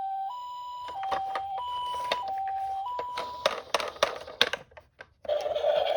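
Electronic two-tone ambulance siren, the Japanese hi-lo pattern, alternating between a high and a low note each held well under a second; it stops about three and a half seconds in. Die-cast toy cars clatter with sharp clicks, and after a brief gap a steady rolling scrape starts near the end as the minicars run down the slope.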